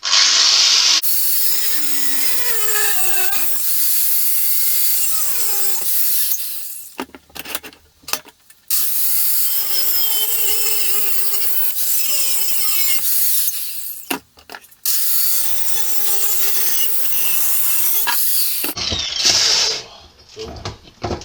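Angle grinder cutting steel angle iron, loud, its motor pitch wavering under load. It runs in three long spells, with short breaks at about seven and fourteen seconds, and stops near the end.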